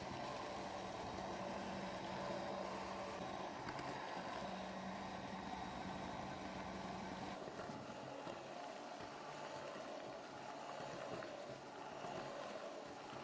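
Electric hand mixer running steadily at medium speed, its beaters whipping apricot purée into a mascarpone and whipped-cream mousse. The hum shifts slightly and gets a little quieter about seven seconds in.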